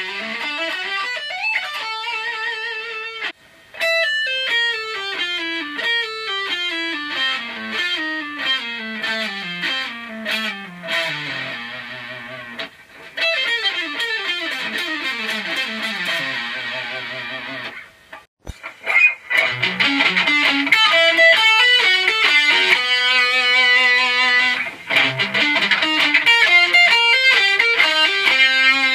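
Electric guitar played solo: rapid runs of single notes, mostly falling, with some longer held notes later on. The playing breaks off briefly about three seconds in and again about two-thirds of the way through, then resumes.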